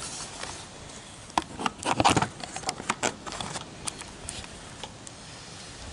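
Handling noise from a camera rubbing and knocking against a shirt: an irregular run of clicks and rustles, busiest from about one and a half to four and a half seconds in.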